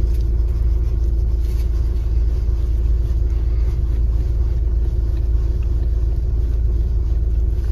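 Hyundai i30 driving, heard from inside the cabin: a steady low rumble of road and engine noise, with no knock coming through the steering after the repair.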